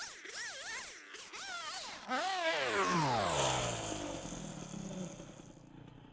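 Chainsaw engine revving up and down, then the throttle is let go and it winds down in pitch toward idle from about two seconds in.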